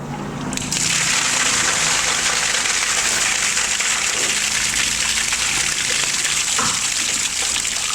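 Toilet being flushed: a steady rush of water that starts suddenly just under a second in and keeps going.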